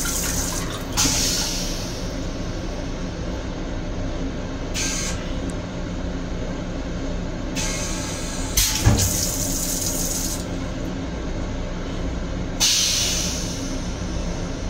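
Metro-North M7 railcar toilet at the tail of its flush cycle: several short hissing sprays, the longest about two-thirds in with a low thump, over the steady low hum of the moving train.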